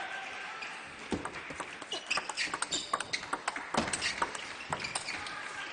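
Table tennis rally: the ball clicks sharply and quickly off the rubber bats and the table, starting about a second in with the serve. A couple of heavier thuds come in among the clicks.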